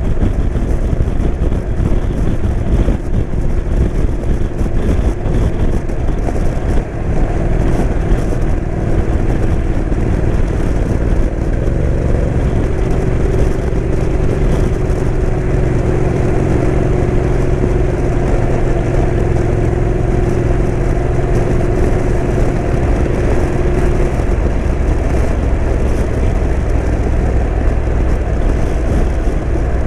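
Motorcycle riding at a steady speed: wind rush over the microphone mixed with the engine's drone, which holds an even pitch through the middle of the stretch.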